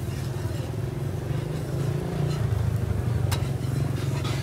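An engine running steadily at a low, even rumble, with one sharp click about three seconds in.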